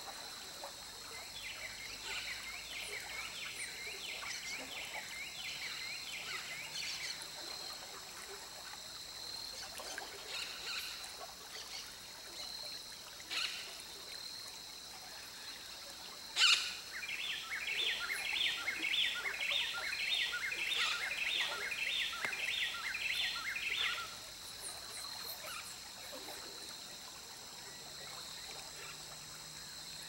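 Creek water running steadily, over a steady high-pitched hum. Birds call: a quick run of notes about a second in lasting several seconds, then, after a single sharp knock past the middle, a series of repeated notes at about two a second for some seven seconds.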